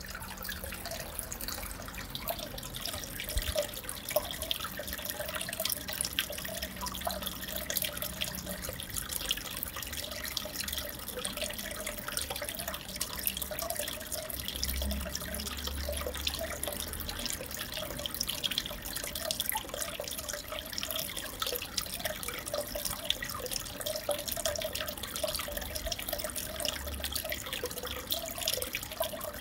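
Aquarium filter outflow running steadily, water trickling and splashing into the tank with many small drips.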